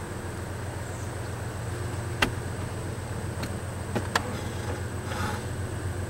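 Low steady rumble of a distant train, with three sharp clicks: one about two seconds in and a close pair about four seconds in.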